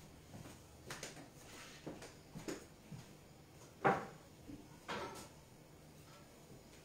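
Sparse knocks and clunks of a kitchen drawer and utensils being handled off to one side. The loudest knock comes about four seconds in and another about a second later.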